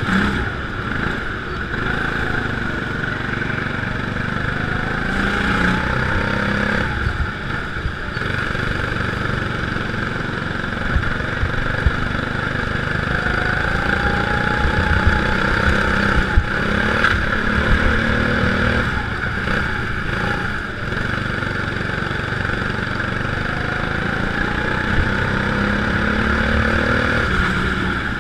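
Go-kart engine heard on board the kart, rising in pitch as it accelerates along the straights and dropping back as it lifts for the corners, three times over, with a steady hiss over it.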